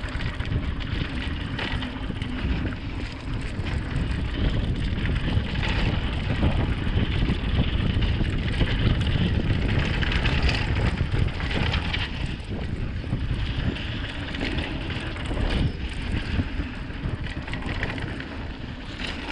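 Wind rushing over the microphone with the rattle and crunch of a mountain bike riding a dirt trail, tyres and frame clattering over bumps. Loudest about halfway through.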